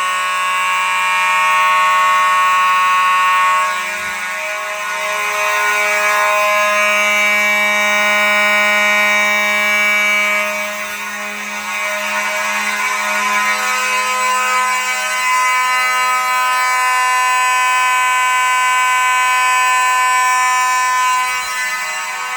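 Several fire alarm horns, mechanical buzzing horns among them, sounding together continuously with no pauses.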